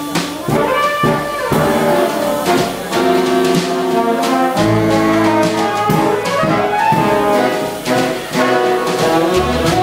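Big band jazz played live: trumpets, trombones and saxophones in full ensemble chords over a drum kit, with sharp drum and cymbal hits punctuating the horn lines.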